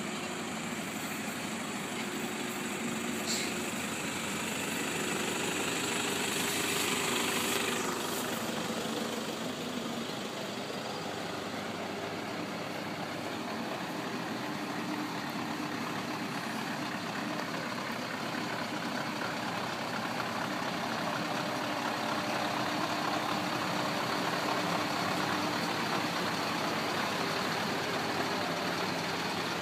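Heavy truck's diesel engine running steadily as a tractor unit and low-loader trailer pass slowly, after a pickup's engine goes by. The noise swells a little twice as the vehicles pass.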